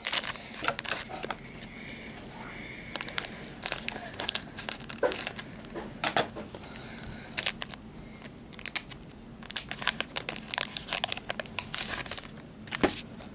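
Foil Pokémon booster pack wrapper crinkling and crackling in the hands as it is torn open, in a run of irregular crackles. Near the end, the stack of cards is handled and slid against itself.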